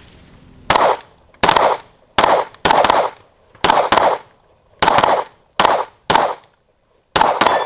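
A string of about nine handgun shots, unevenly spaced half a second to a second apart, fired at steel and clay targets during a timed drill.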